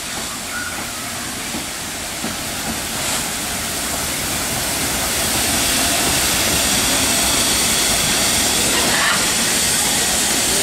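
Beyer Peacock 2-4-0 tank steam locomotive moving slowly past close by, with a steady hiss of escaping steam that grows louder about five seconds in as the engine draws level.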